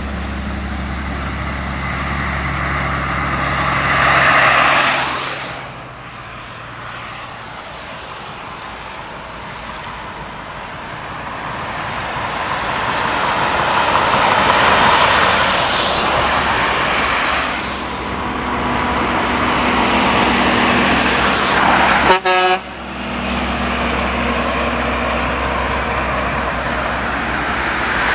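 Trucks and cars passing one after another on a highway, each engine and tyre noise swelling and fading as it goes by. A brief, sharp vehicle horn toot sounds about three-quarters of the way through.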